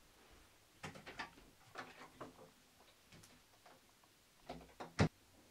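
Footsteps across a room, then a door being handled: a few knocks and one solid thump near the end, the loudest sound.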